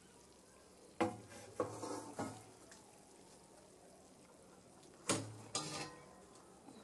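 Potatoes and chicken frying in a cast-iron kazan with a faint steady sizzle. Two short runs of sharp metal clanks of cookware come about a second in and again about five seconds in, each ringing briefly.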